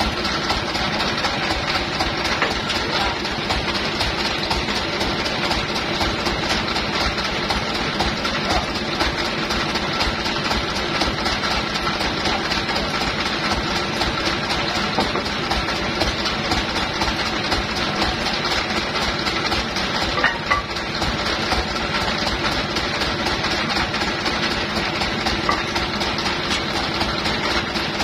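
Sawmill engine idling steadily, with one short knock about two-thirds of the way through.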